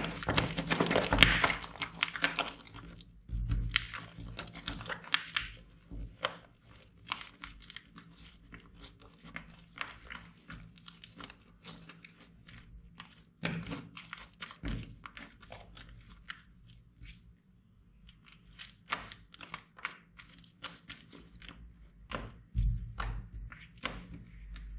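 Slime being squeezed and worked by hand, giving a stream of irregular crackling clicks and pops, densest and loudest in the first few seconds.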